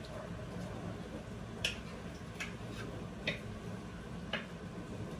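A utensil clicking against the pan while the beef and sour cream mixture is stirred: four light clicks, spaced about a second apart, over a low steady hum.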